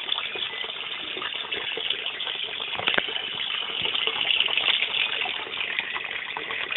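Steady gushing of water moved by a submersible pump, with a single knock about three seconds in.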